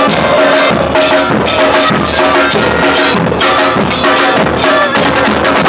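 A supporters' crowd (hinchada) chanting in unison, backed by steadily beaten bass drums, loud and without a break.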